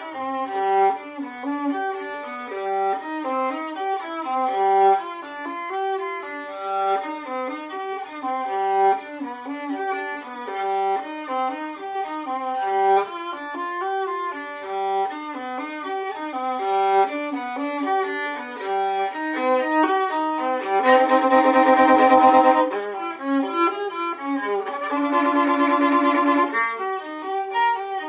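Solo violin played with the bow, a run of quick changing notes. About twenty seconds in it grows louder, with two fuller, held stretches of sound.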